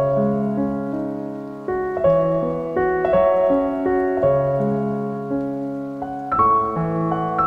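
Slow solo piano music: chords struck one after another, each left to ring and fade before the next.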